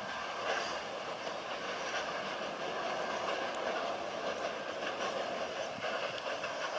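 Grain hopper wagons of a freight train rolling away over the rails: a steady rolling noise of steel wheels on track, with a few light clicks.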